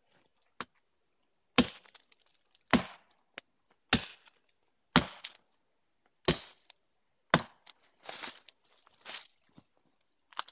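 Hatchet chopping into a small fallen log: about eight sharp chops, roughly one a second, each biting into the wood.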